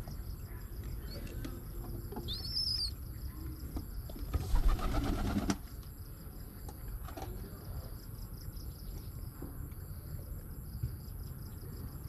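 Adult pigeon flapping its wings as it takes off from the nest box: a short burst of wing beats about four seconds in, the loudest sound, lasting about a second and a half. A brief high chirp comes a couple of seconds earlier.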